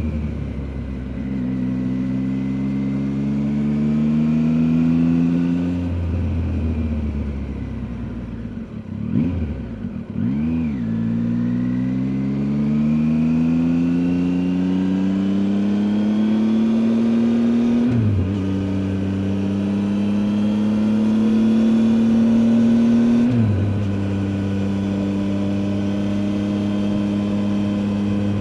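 Triumph Tiger 800 XCA's 800 cc inline-three engine pulling through the gears: the engine note climbs steadily and drops sharply at each upshift, about three times, with a brief fall and quick blip of revs near the middle.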